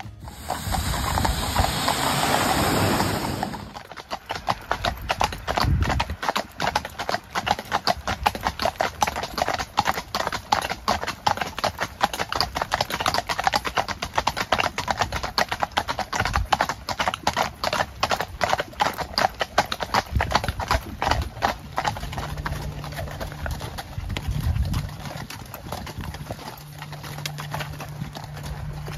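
Hooves of a four-horse carriage team clip-clopping in a dense, quick clatter on wet asphalt. For the first four seconds or so, a passing vehicle's rush drowns the hoofbeats.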